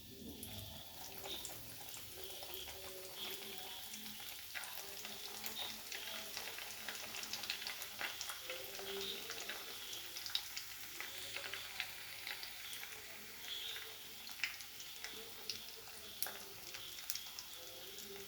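Oats-coated chicken pieces frying in hot coconut oil: a steady sizzle with frequent small crackles.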